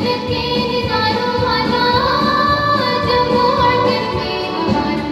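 A song with a female voice singing held, gliding notes over a steady beat, in a South Asian style.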